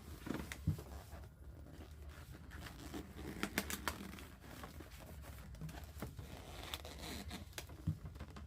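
Inflated Gemar bird-shaped latex balloon being twisted and handled: rubbing against the hands with scattered sharp clicks.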